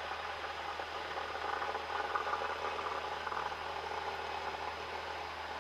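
Steady drone of a Cessna 172's engine and propeller inside the cabin during departure and climb-out, swelling slightly about two seconds in.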